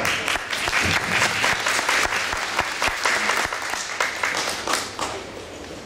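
Audience applauding, dense clapping that dies down near the end.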